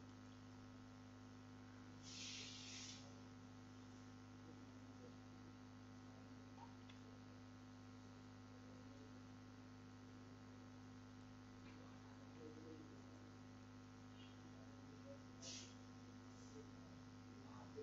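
Near silence with a steady electrical hum on the recording, broken by a brief hiss about two seconds in and a shorter one near the end.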